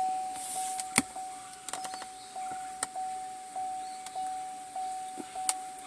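Chevrolet Cruze's dashboard warning chime dinging over and over, about one and a half dings a second, each ding fading before the next. A few sharp clicks sound over it.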